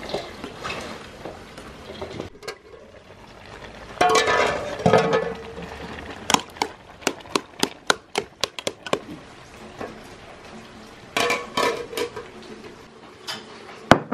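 Kitchen work with metal bowls and pots: a soft rustle of chopped vegetables being tossed by hand in a steel bowl, then a loud ringing metal clank about four seconds in. A quick run of sharp clinks of a ladle against a steel cooking pot follows, and another ringing clank comes near eleven seconds.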